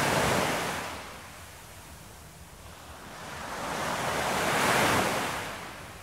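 Ocean surf washing ashore: one wave at its peak as it starts, fading, then a second building to a peak near the end and dying away.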